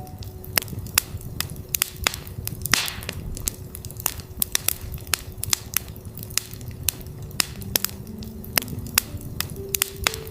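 Campfire crackling, with many sharp wood snaps and pops and a short hiss about three seconds in, over a steady 369 Hz tone. A few soft synthesised notes step upward near the end.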